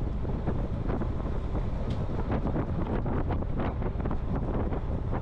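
Wind buffeting the microphone of a camera on a moving bicycle: a steady low rumble, with light ticks and rattles scattered through it.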